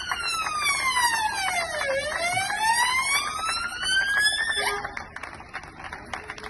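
Police car siren wailing: one slow fall and rise in pitch, then cutting off about four and a half seconds in. Scattered hand clapping goes on behind it and is left on its own after the siren stops.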